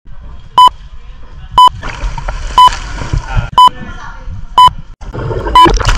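A loud, short electronic beep repeating about once a second, with voices and a rushing noise underneath.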